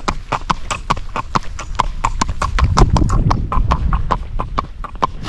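A horse's hooves clip-clopping at a walk on an asphalt road: an even run of sharp knocks, about six a second.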